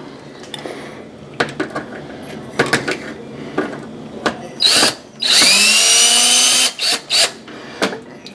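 Cordless drill-driver backing screws out of the oven's sheet-metal blower bracket. A few handling clicks and a brief burst come first. Then, past the middle, the motor runs for about a second and a half with a whine that rises as it speeds up, followed by two short bursts.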